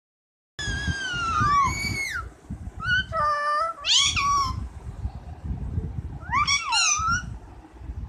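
Rose-ringed parakeet calling: three bursts of high, drawn-out calls that slide up and down in pitch, with short pauses between them.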